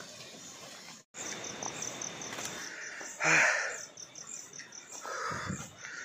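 Crickets chirping in a steady run of short high pulses, about five a second, over a faint continuous high tone. A short breathy sound comes about three seconds in, and the sound cuts out for an instant about a second in.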